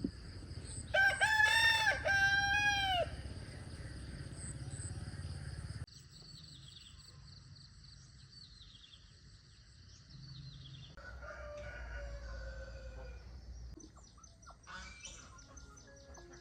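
A rooster crows once, loud and drawn out, about a second in. After a sudden change a few seconds later, small birds chirp with repeated falling notes.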